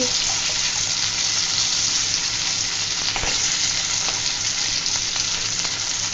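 Ready-made masala and green chillies sizzling steadily in hot oil in a kadai while being stirred, with a faint scrape or tap about three seconds in.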